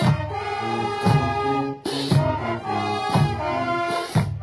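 Music with sustained chords and a sharp drum hit about once a second.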